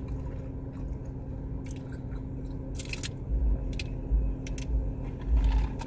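Close-up chewing of a thick bologna and egg sandwich, with several sharp wet mouth smacks and a few low thumps over a steady low hum.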